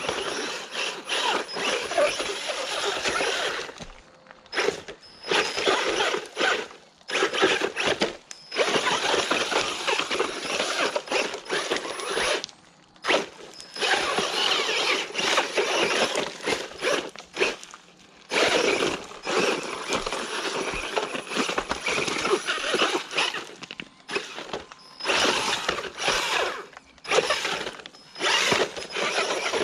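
Brushless RC car's drivetrain whirring and rattling in stop-start bursts as its wheels spin and scrabble on loose rock and gravel, with short pauses between bursts where the throttle comes off. Its differentials are wide open, so the wheels spin freely as it struggles up the slope.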